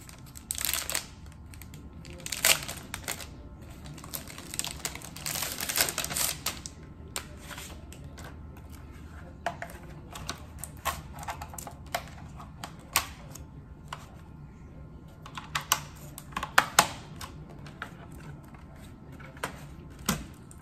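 A new Logitech K380 wireless keyboard being unpacked and handled: rustling of its paper and plastic wrapping, with scattered clicks and clacks of its plastic keys and case. The loudest clicks come in small clusters, about two seconds in and again near the end.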